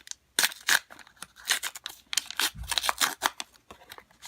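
Trading cards being handled and flipped through one after another: a quick run of papery snaps and slides, with a dull bump about two and a half seconds in.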